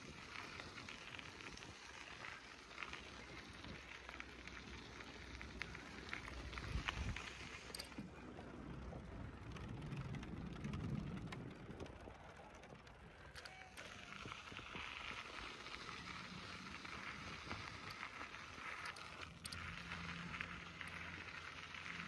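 Riding noise from a bicycle rolling along a paved path: a steady rushing noise with scattered light clicks.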